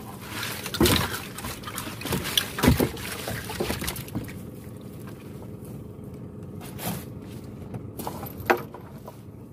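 A wet fishing net hauled by hand over a boat's side, with water trickling and splashing off it and several sharp knocks as it is handled, over a faint steady hum.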